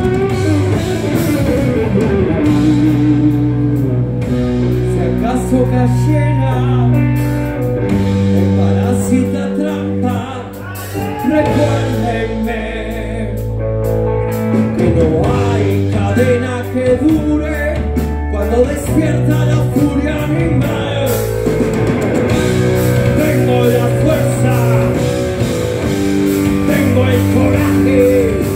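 Live heavy metal band playing: distorted electric guitars, bass and drum kit, loud and continuous, with a singing lead line over the top.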